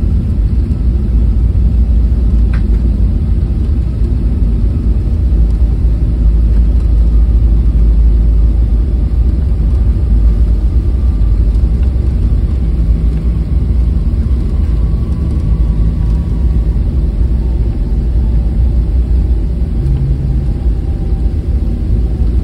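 Boeing 737 cabin noise while the airliner rolls along the taxiway after landing: a loud steady low rumble from the engines and landing gear, with a faint high engine whine slowly falling in pitch.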